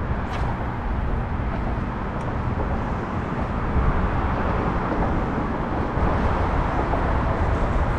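Boat motor running steadily while the boat is under way: a low engine hum under a broad rushing noise, a little louder from about halfway through.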